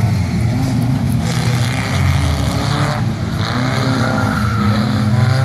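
Several stock-car engines running and revving together as the cars race backwards around a paved short oval, their pitch shifting as they speed up and ease off.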